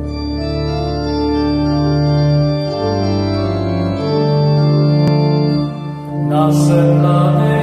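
Organ playing slow sustained chords that change every second or so; the sound grows brighter and fuller about six seconds in.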